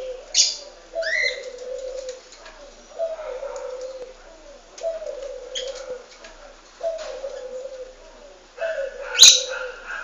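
Pet birds calling: a low, falling call repeated about every two seconds, with a few sharp, high, falling chirps from another bird near the start and again near the end. A sharp click about nine seconds in is the loudest sound.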